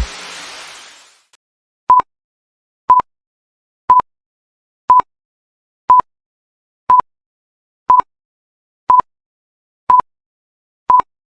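Electronic workout interval timer beeping once a second: ten short beeps, all the same pitch, marking off the seconds of a rest break between exercises. A fading tail of the stopped dance music is heard in the first second.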